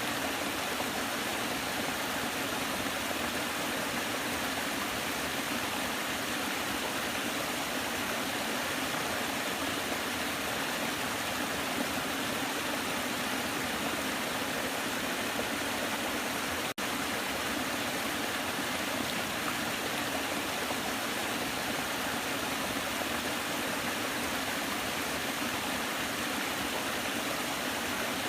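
Waterfall: water falling and rushing in a steady, even wash of sound, with a split-second dropout about two-thirds of the way through.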